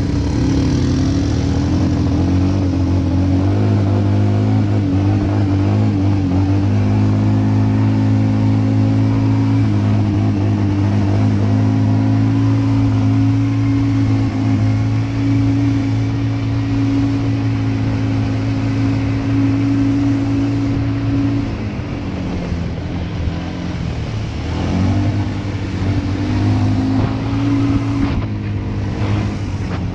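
ATV (quad bike) engine running at a steady speed while riding, heard from the bike itself. About twenty-two seconds in the revs fall away, then climb back up a few seconds later.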